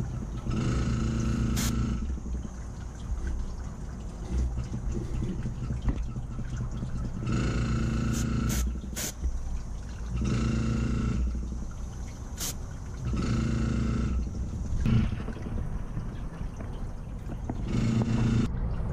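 Small airbrush compressor motor running steadily. About five times it swells into a louder, higher-pitched note for a second or two.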